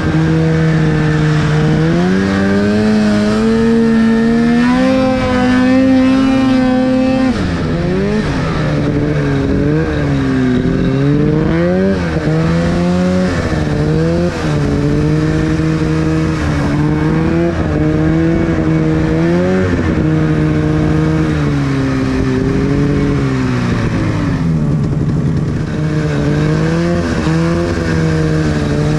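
Arctic Cat two-stroke snowmobile engine running under way, its revs rising and falling repeatedly as the throttle is worked, with a sharp drop in pitch about seven seconds in.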